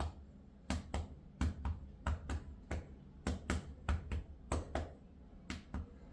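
Cupped hand clapping on a child's back in chest percussion, done to loosen phlegm so it can be coughed up. Sharp claps come in quick pairs and threes, a group roughly every three-quarters of a second.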